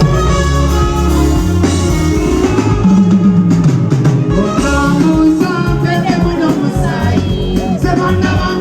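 Band music with a drum kit, bass and a singing voice, played loud over the stage sound system during a sound check.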